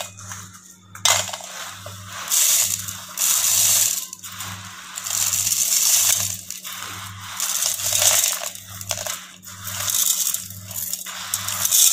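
Dry-roasted spices and lentils (dried red chillies, cumin, coriander seeds, peppercorns, toor and chana dal) poured into a stainless-steel mixer-grinder jar: a dry rattling hiss of seeds pattering on steel, coming in several separate pours.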